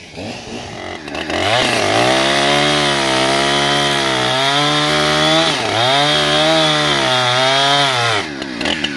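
Petrol chainsaw revving up about a second in and cutting at full throttle through a privet's dense root ball and soil. Its engine pitch sags twice under load and recovers, then drops back toward idle near the end.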